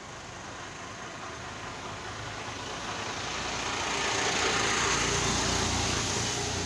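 Diesel engine of a TAFE 45 DI tractor running steadily at low speed. It grows louder over the first four seconds or so, loudest near the exhaust stack.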